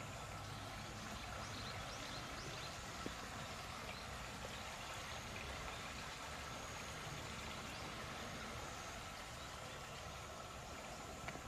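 Steady rush of running water, as from a stream or water channel.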